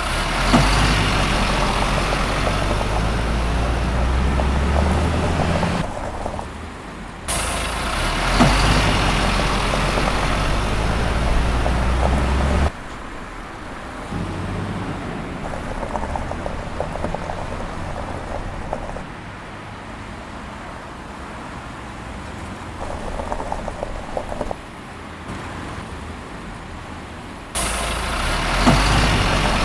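Motors of toy construction vehicles running steadily with a low hum and some clatter, in several edited stretches that switch abruptly between louder and quieter sections.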